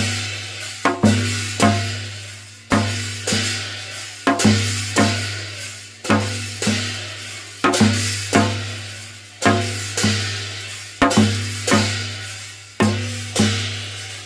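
Korean shamanic ritual drumming for a Bulsa-geori: a janggu (hourglass drum) is struck in a slow, uneven rhythm, about one to two strokes a second, some in pairs. Each stroke is a deep boom that rings out and fades, with a bright wash above it.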